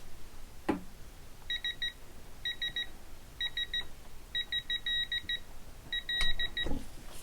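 Digital torque meter beeping as a head bolt is drawn up toward the set torque: quick runs of about four short, high beeps repeated roughly once a second, one run holding a longer beep about five seconds in. A knock of the wrench comes near the start and near the end.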